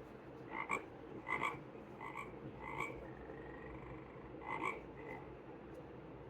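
Recorded frog croaking played through a sound book's small speaker: about six short croaks, with a gap of over a second before the last two.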